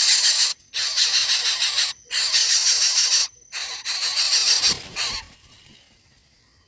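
Nestling bird's harsh, hissing begging calls, about four long rasps in a row, dying away about five seconds in.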